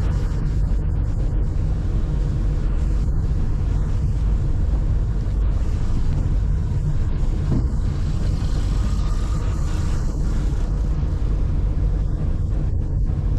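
Car being driven: a steady low rumble of engine and road noise, with a short swell of hiss a little past the middle.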